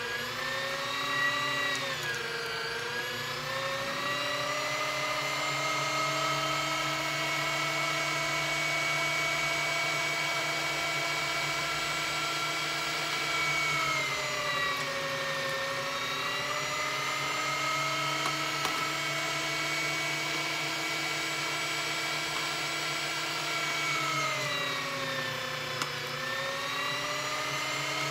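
LEM electric meat grinder running as it grinds semi-frozen beef chuck through the coarse plate: a steady motor whine. Its pitch sags and recovers three times, about 2, 15 and 25 seconds in, as the load of meat changes.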